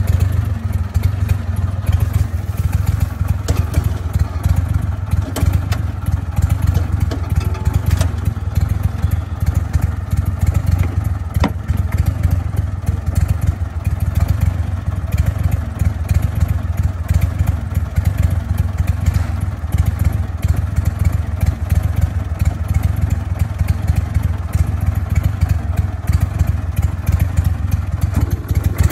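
Crawfish boat's engine running with a steady low drone, with irregular clatter of crawfish being shaken out of a wire trap onto a metal sorting table.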